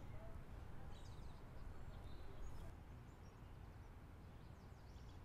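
Faint outdoor ambience: a low steady rumble with a few brief, distant bird chirps, the clearest about a second in.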